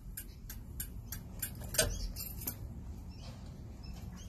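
Turn-signal flasher of a 1979 Toyota FJ40 Land Cruiser clicking evenly at about three clicks a second, growing fainter in the second half, over a low steady rumble.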